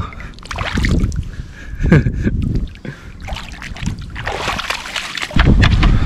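Shallow seawater splashing and sloshing, with a few sharp splashes. A loud low rumble sets in near the end.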